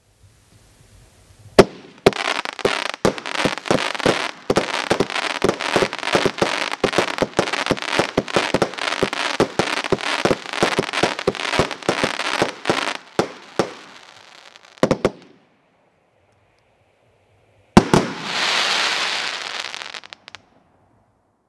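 World Class 'Dropping' consumer fireworks cake firing. A loud first shot comes about one and a half seconds in, then a rapid string of shots, about three to four a second, over continuous crackling for some twelve seconds. After a pause there is a final loud double bang, followed by a couple of seconds of fizzing crackle.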